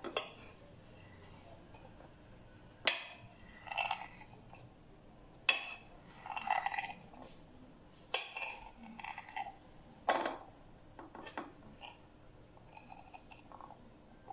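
Knife cutting a soft sponge cake on a ceramic plate: four sharp clicks a couple of seconds apart as the blade meets the plate, each followed by softer scraping of the blade through the cake.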